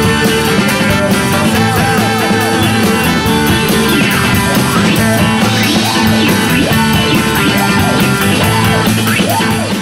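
Background music: an instrumental passage of a song with a steady beat and repeated swooping, warbling lead lines.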